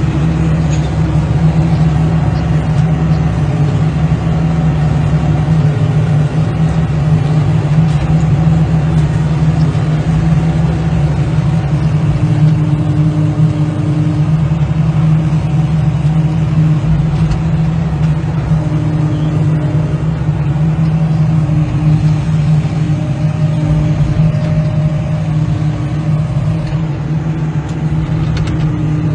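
A large engine, most likely heavy machinery's diesel, running steadily at a constant speed, with a low hum that holds the same pitch throughout.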